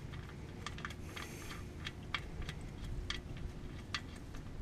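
Light, irregular metallic clicks of an oil drain plug bolt being threaded back into the oil pan by hand, over a faint steady hum.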